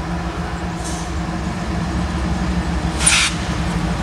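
CSX diesel-electric freight locomotive running past with a steady low engine drone. A short, sharp hiss sounds about three seconds in.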